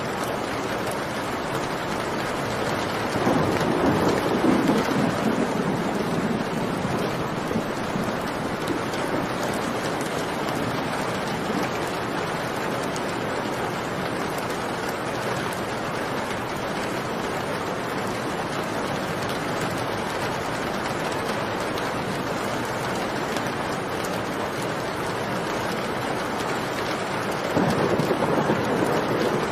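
Steady heavy rain with thunder rumbling twice: once about three seconds in and again near the end.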